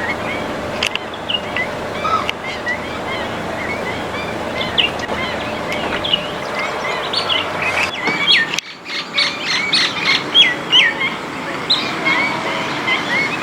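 Many small birds chirping at once, a dense run of short, quick, rising chirps over a steady background hiss. About two-thirds of the way through, the chirping briefly thins and then comes back louder and busier.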